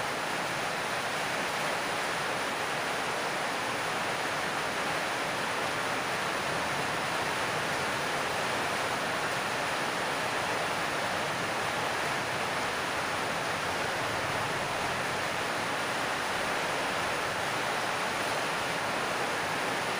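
Heavy rain falling on a corrugated metal roof: a steady, even hiss that does not change.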